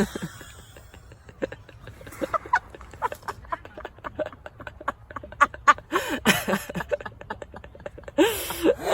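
People laughing quietly in short bursts, over many small scattered clicks; the laughter is strongest about six seconds in and again near the end.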